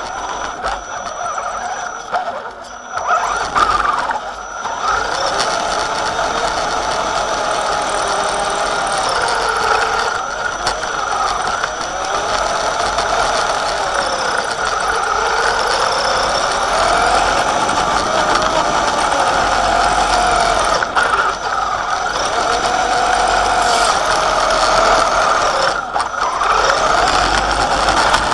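Axial Wraith RC rock racer's electric motor and two-speed gearbox (set on high) whining as it drives, the pitch rising and falling with throttle and speed and dipping briefly several times when the throttle eases off. Heard close up from the car's on-board camera.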